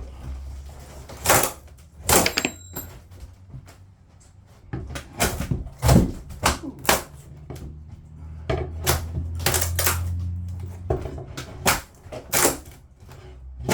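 Irregular sharp knocks and clatter of demolition work on an old houseboat, with a low hum underneath that grows louder for a few seconds past the middle.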